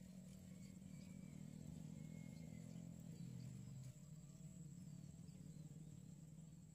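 Very faint music, little more than its low bass notes, which change a few seconds in, under a thin steady high whine.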